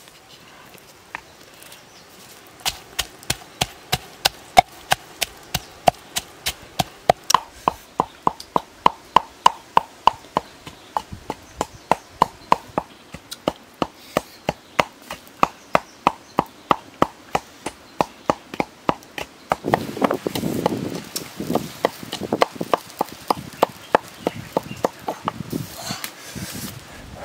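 A pestle pounding salt, red chillies and garlic in a mortar: steady, even strikes about three a second, each with a short ring. The strokes go on for most of the stretch, with a rougher, noisier patch about twenty seconds in.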